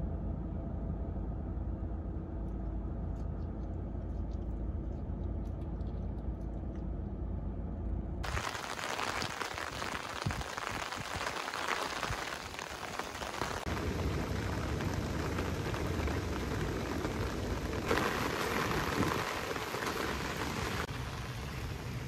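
Steady low road rumble inside a moving car's cabin. About eight seconds in it gives way to heavy rain falling, a steady hiss with a low rumble under it in the later part.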